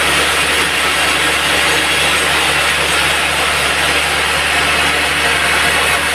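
Band sawmill running steadily, its blade sawing through a log over a constant motor hum.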